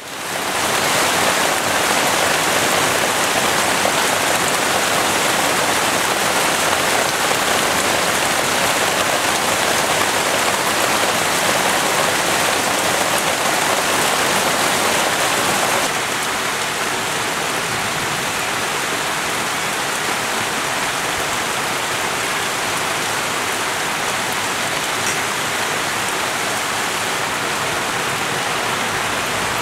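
Steady monsoon rain falling, a dense, even hiss with no distinct drops standing out. It fades in at the start and turns a little quieter about halfway through.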